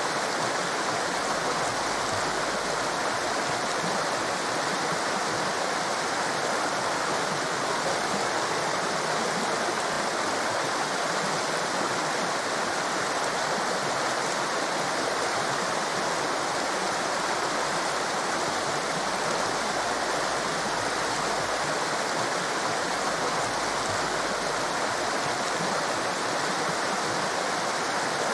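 Torrent of water rushing: a steady, even hiss of white water that keeps the same level throughout, with no breaks or splashes standing out.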